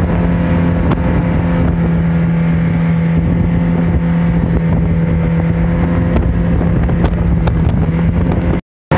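Mercury outboard jet motor running steadily at a cruising speed of about 30 mph, with wind rushing over the microphone. The sound cuts out briefly near the end.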